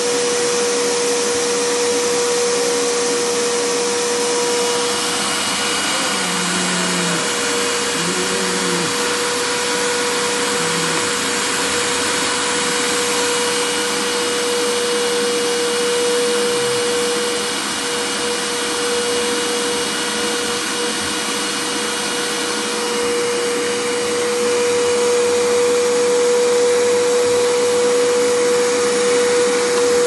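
Canister vacuum cleaner running steadily: a continuous rush of air with a steady motor tone, growing a little louder in the last several seconds.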